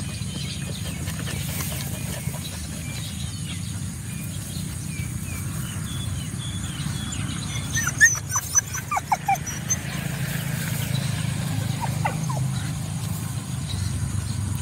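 Short, high, falling squeaky animal cries: a quick run of about six some eight seconds in, and two more around twelve seconds, over a steady low rumble.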